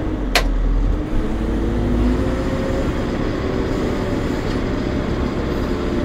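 JCB 3CX Pro backhoe loader's 4.8-litre diesel engine working under load in first gear as the front bucket is driven into a pile of earth and filled. Its note rises slightly about a second in and then holds steady. There is a single sharp click just under half a second in.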